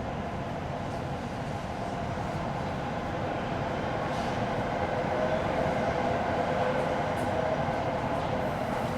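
Shinkansen train running: a steady rumble with a hum that grows a little louder in the second half.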